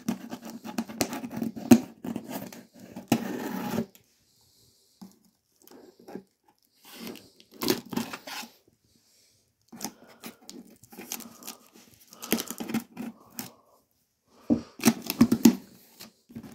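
A knife slitting and tearing packing tape on a cardboard parcel box, with rustling and scraping as the box is handled. It comes in four bursts separated by pauses.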